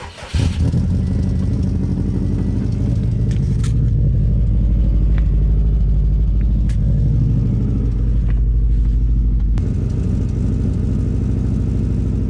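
Subaru WRX's turbocharged flat-four engine running loud and steady with a throbbing pulse, coming in sharply about half a second in. The owner says it doesn't sound good; the car idles roughly and runs rich, which the owner puts down to a suspected faulty wastegate.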